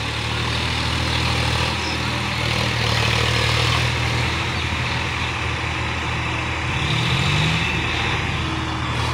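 Tractor diesel engines running, a steady low drone, with one engine revving up briefly about seven seconds in.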